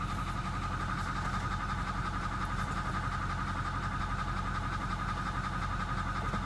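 Ford 6.4 L Power Stroke V8 turbo-diesel idling with a fast, even knock from the top end of the engine, which the owner suspects is a bad rocker arm on the number 8 cylinder. A steady high-pitched tone runs over the engine.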